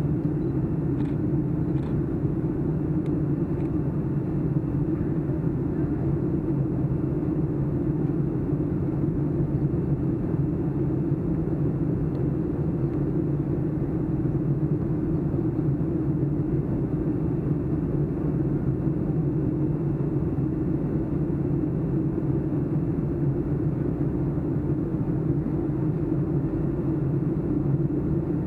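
Steady cabin drone of a Boeing 757-200 climbing after takeoff: engine and airflow noise heard through the cabin window. It is deep and even, with no change in level.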